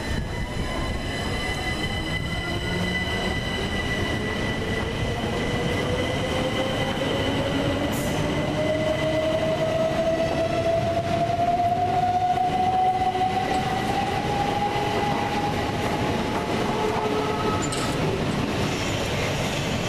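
Electric multiple-unit train pulling out along the platform, its traction motors whining in a tone that rises steadily in pitch as it gathers speed, over a continuous rumble of wheels on rail.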